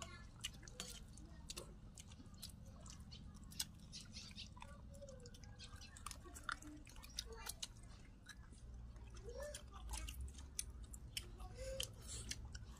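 People chewing food close to the microphone, with many small sharp clicks scattered throughout from mouths and spoons.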